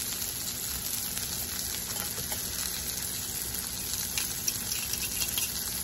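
Onions and green bell pepper sizzling steadily in avocado oil in a stainless steel skillet, with a few light scrapes of a metal fork against the pan near the end.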